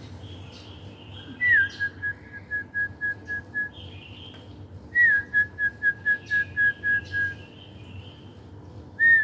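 A person whistling a bird-like call to draw in wild zebra doves. The call comes twice in full and starts a third time near the end. Each time it is a quick rising-and-falling slur followed by a run of short notes on one pitch that slowly space out.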